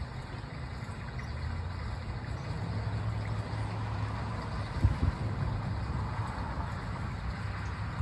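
Outdoor park ambience: a steady low rumble with wind buffeting the microphone, and a brief thump about five seconds in.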